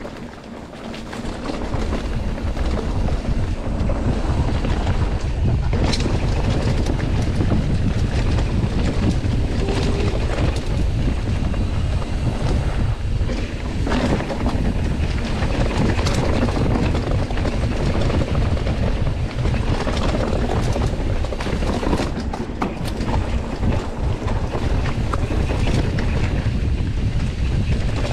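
Wind buffeting the microphone of a handlebar-mounted camera on a mountain bike riding a dirt trail, a loud low rumble that comes up about two seconds in, with the bike rattling and knocking over bumps.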